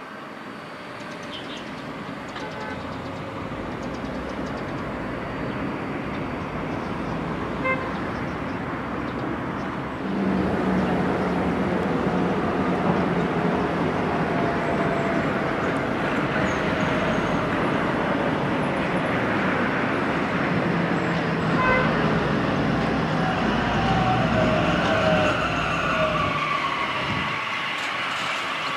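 Translohr rubber-tyred guided tram running along the street and passing close by, its running noise growing louder as it comes near, with a faint whine that falls in pitch near the end. A horn toots briefly twice, about eight seconds in and again about twenty-two seconds in.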